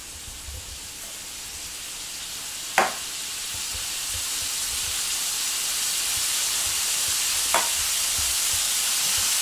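Chunks of raw beef tenderloin sizzling in a hot electric wok alongside chicken and vegetables, the sizzle growing steadily louder as the meat sears. Two short sharp clicks, one about three seconds in and another later on.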